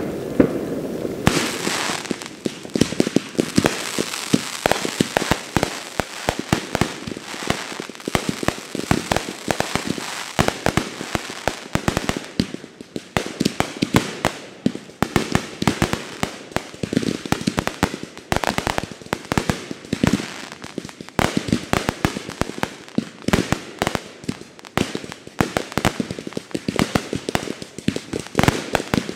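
Fireworks going off in a rapid, continuous barrage of bangs and crackling, starting about a second in.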